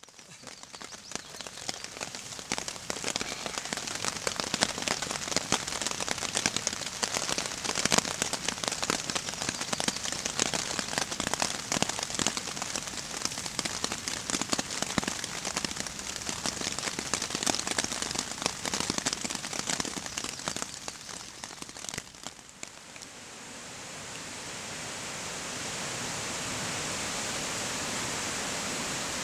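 Rain pattering on a tarp shelter overhead, a dense crackle of many small drop hits. About three-quarters of the way through it gives way to the smooth, steady rush of a fast-flowing river in spate.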